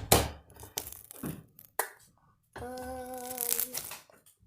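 Wet clicks and crackles of slime being squeezed and pulled, then a child hums one steady note for about a second.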